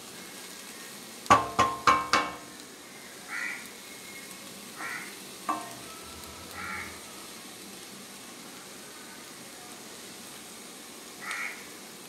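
Bean and coconut thoran sizzling faintly in a kadai as it is stirred. About a second in, the spatula knocks sharply against the pan four times in quick succession with a ringing sound, and once more about five seconds in. Crows caw four times in the background.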